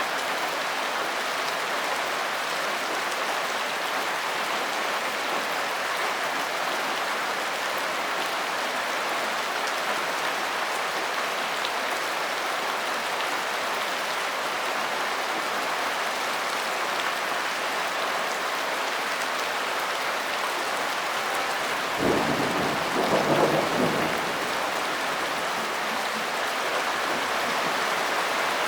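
Steady rainfall, an even hiss of drops on a surface. About twenty-two seconds in, a brief low rumble rises over it for around two seconds, the loudest moment.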